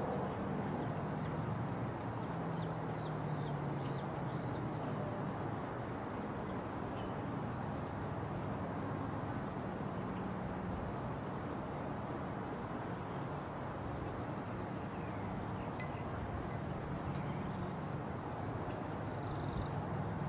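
Steady low outdoor rumble with faint, high, scattered bird chirps, and a thin run of quick high pips through the middle.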